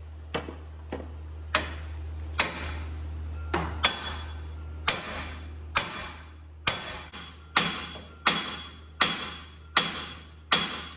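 Hammer blows on the steel front wheel hub bearing assembly of a 2006 Ford Explorer, metal ringing at each strike, as the seized hub is driven to break loose from the knuckle. About fourteen strikes, spaced unevenly at first, then settling into a steady beat of a little more than one a second.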